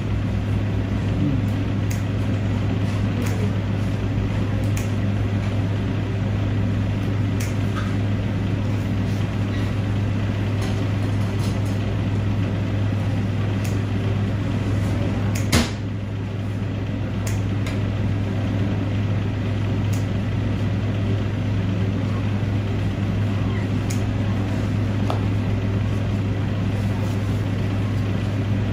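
Steady low mechanical hum of a running machine, with one sharp click about halfway through and a few faint handling ticks.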